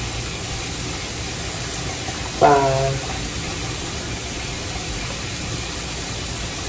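Steady rushing background noise, even in level throughout, broken once about two and a half seconds in by a single short spoken word.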